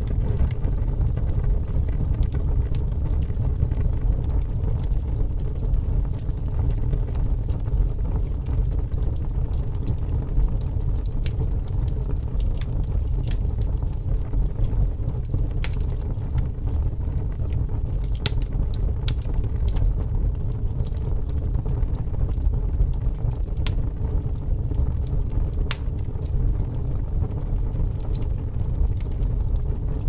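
Wood fire burning in a fireplace: a steady low rumble of flames, with irregular sharp crackles and pops from the burning logs, a few of them louder than the rest.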